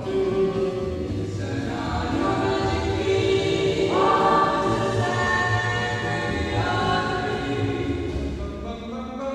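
Distorted, creepy remake of a 1950s vocal-group song, its voices held in long choir-like chords that shift to new notes every two or three seconds over a low throbbing bass.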